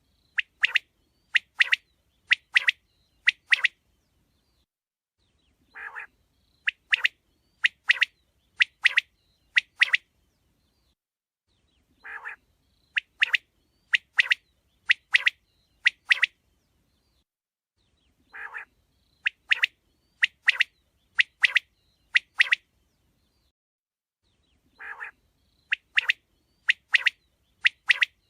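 Quail calling: a short, lower note followed by a quick run of about six sharp chirps. The phrase repeats at an even pace, about every six seconds.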